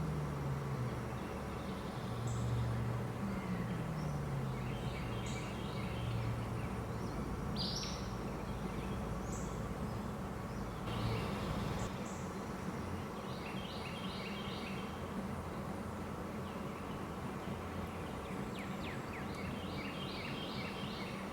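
Outdoor ambience: small birds calling in quick clusters of short high chirps several times, with single high notes between, over a steady low hum that drops in pitch twice in the first few seconds.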